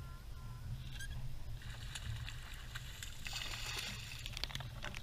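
Water sloshing against the boat's hull. About three seconds in, a hooked bass splashes and thrashes at the surface beside the boat, followed by a few light clicks.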